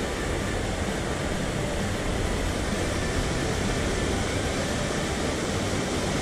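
Steady rushing of a mountain stream's current, an even noise that does not change.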